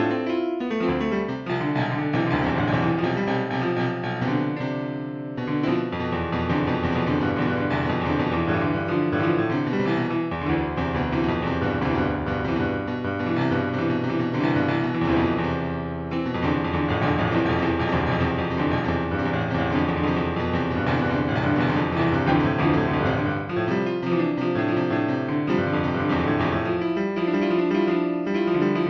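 Slow instrumental music led by piano or keyboard, with sustained chords and a deep bass layer that enters about five seconds in and drops away again near the end.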